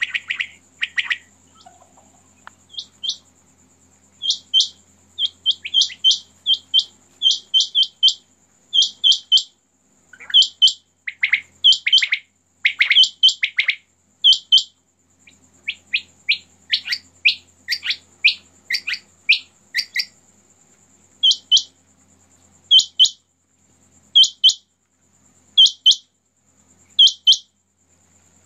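Several caged common quail (batair) calling. Short, sharp notes come in quick groups of two or three, repeated about every second, with some downward-slurred calls overlapping in the middle stretch.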